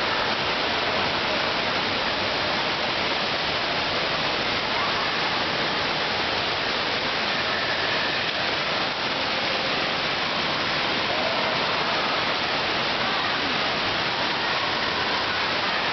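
Steady rushing and splashing of water pouring and spraying from an indoor water-park play structure.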